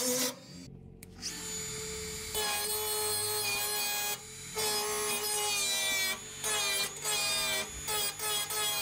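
Handheld high-speed rotary tool with a small cut-off wheel grinding welds on a steel floor pan, a steady high whine. It breaks off briefly several times in the second half and starts again.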